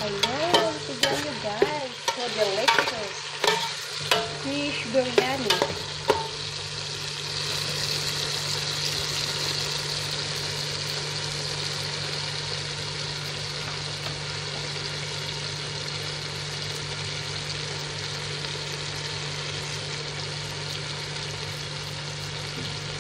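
Fish in a tomato and onion mixture sizzling in a cooking pot. During the first six seconds a utensil clicks and knocks against the pot as the mixture is stirred, and after that it settles into a steady sizzle over a low steady hum.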